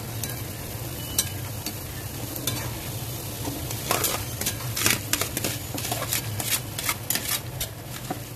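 A metal spoon scrapes and taps against a metal pot while rice is spread in it, giving sharp clicks that come more often about halfway through. Under them runs a steady sizzle from oil heating in the pot on the gas flame.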